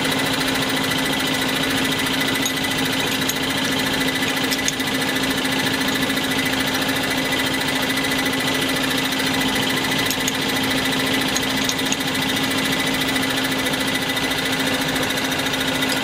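Diesel injection pump test bench running steadily, a continuous mechanical rattle with a steady hum, while a few faint metallic clicks come from a wrench counter-locking the Bosch inline pump's tappet lock nuts.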